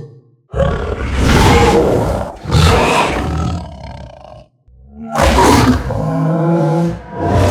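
Black panther roar sound effect: a long, deep roar that swells twice, a short silence, then two more roars close together near the end.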